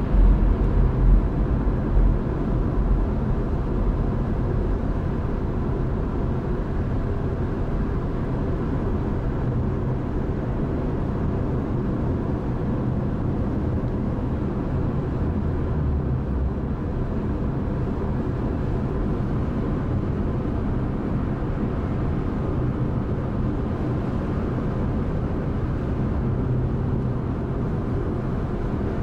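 Steady road and engine noise heard inside the cabin of a car driving on a highway, a low rumble that stays even after the first couple of seconds.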